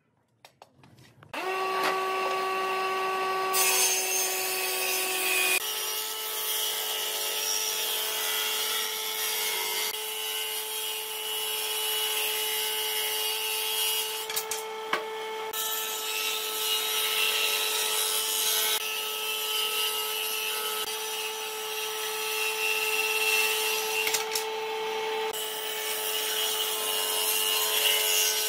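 An electric power tool starts about a second in and runs steadily on wood, with a constant whine over a noisy cutting or sanding sound.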